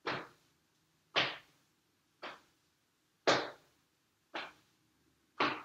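Hands slapping against the chest and shoulders as loose arms swing in a standing twist, about once a second, every other slap louder.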